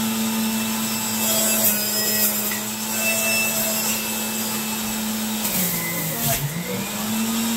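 Electric centrifugal juicer running with a steady motor hum and a grinding whir. About five and a half seconds in the motor's pitch drops and wavers as produce is pushed down the feed chute, then it comes back up to speed.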